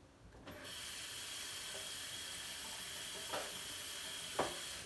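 Steady hiss of running water, switched on about half a second in and cut off near the end, with a couple of short knocks.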